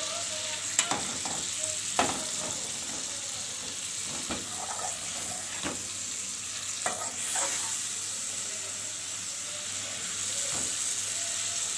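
Sliced tomatoes sizzling in hot oil and fried spice paste in a karahi, stirred with a slotted metal spatula that clicks and scrapes against the pan now and then.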